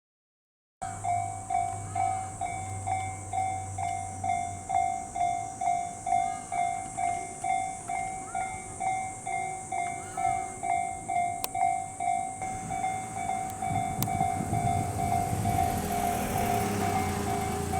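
Railway level-crossing warning bell ringing, a steady ding-ding at about two strokes a second, starting about a second in. From about two-thirds of the way through, the rumble of an approaching train rises under the bell.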